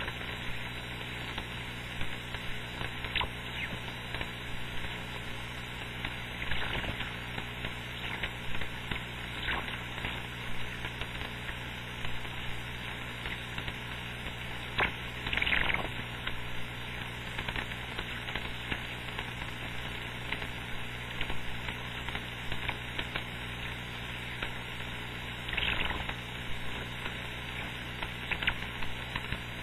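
Radio receiver's audio on the 11-metre band with no station coming through: a steady hiss of band noise and static over a low hum, broken by short crackles now and then, the loudest about 15 seconds in.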